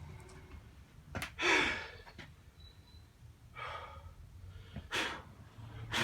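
A man breathing out heavily: two long sighs, about a second and a half in and again near four seconds, with a few sharp clicks between them.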